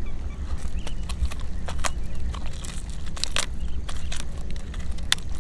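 Mud crab shells cracking and snapping as they are broken apart by hand: irregular sharp clicks and crunches as the top shell comes off and the body is split, over a steady low rumble.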